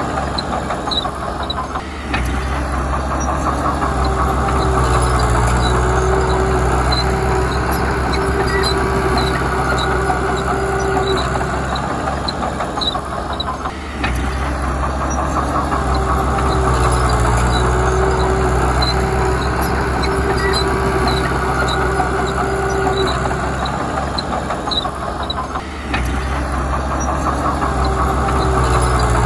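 Heavy diesel engine of earth-moving machinery running continuously, its note swelling and easing as the load changes. There are brief dips about every twelve seconds and light ticking throughout.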